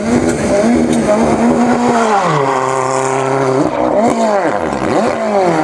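Ford Fiesta rally car's engine revving hard while it spins doughnuts, with the tyres spinning on tarmac. For about two seconds the revs hold high and waver rhythmically, then they drop and hold lower, dip and climb again, and rise near the end.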